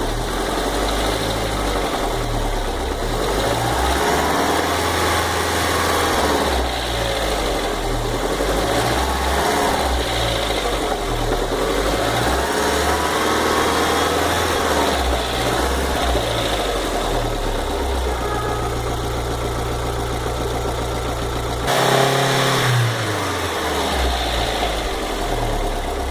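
VW Fox engine running at idle with a repeated ticking, knocking noise, a 'tique-tique' that comes back when the engine is hot and goes away when it is cold; its cause is unknown. About three-quarters of the way through it briefly grows louder for about a second.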